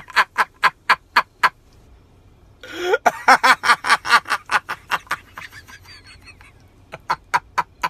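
A person laughing in quick repeated bursts: a short run of laughs in the first second and a half, a longer bout around the middle, and a few more near the end.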